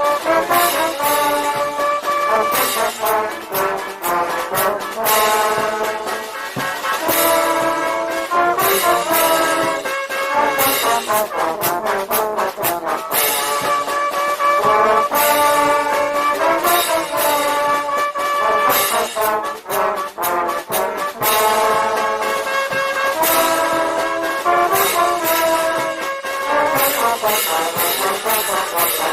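Brass band playing a dobrado, a Brazilian military-style march: trombones and trumpets carry the tune over a steady drum and cymbal beat.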